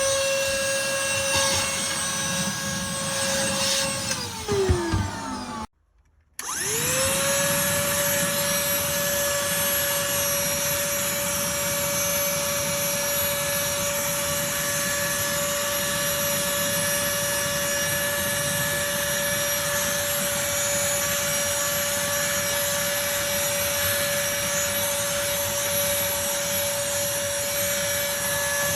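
A small battery-powered handheld vacuum's motor running with a steady whine. About four seconds in it is switched off and winds down with a falling pitch. After a brief silence it spins up again and runs steadily.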